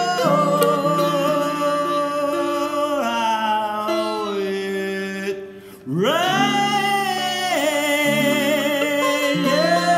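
Male voice singing with sitar and baritone ukulele accompaniment, in long held notes that bend in pitch. About five and a half seconds in the sound drops away briefly, then a note slides up and is held with a wavering vibrato.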